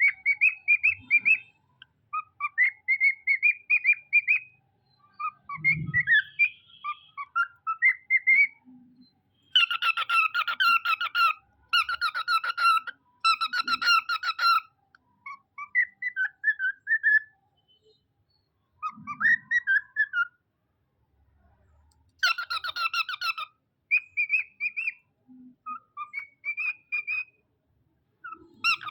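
Pet parrot whistling short melodic phrases. About ten seconds in it breaks into several seconds of harsh, rapid chattering calls, and it does so again briefly past the twenty-second mark.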